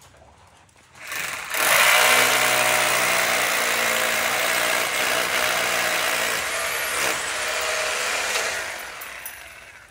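Electric drill running under load as it bores into the jamb of a steel door frame. It starts about a second in, runs steadily, and winds down near the end.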